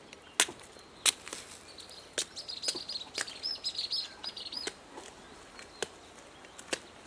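Two sharp chops of a blade splitting palmyra palm fruit in the first second or so, then small birds chirping rapidly for a couple of seconds in the middle, with a few scattered lighter clicks.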